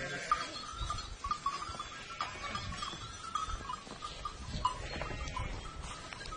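A small herd of goats: bells clinking in short, repeated notes, with an occasional bleat.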